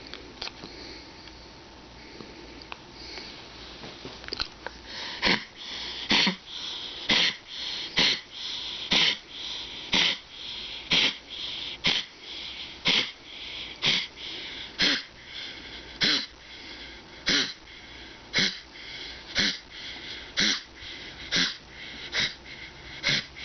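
Dog with a collapsing trachea wheezing and coughing in a steady rhythm, about one harsh, rasping breath a second from about five seconds in, after a few seconds of quieter sniffing.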